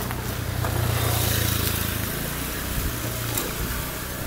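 Riding along a wet lane: tyres hissing on the soaked surface under a low steady motor hum, which is loudest from about half a second to two seconds in.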